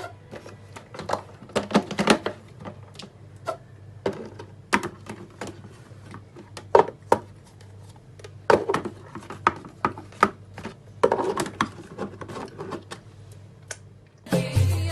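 Electric blender grinding a thick, waterless mix of dried figs, garlic and olive oil, a steady low hum under irregular clunks and knocks. Music comes in near the end.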